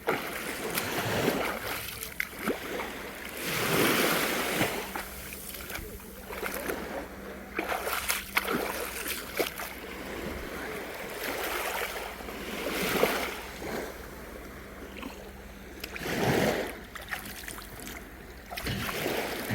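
Seawater lapping and splashing in irregular surges every few seconds, over a faint steady hum.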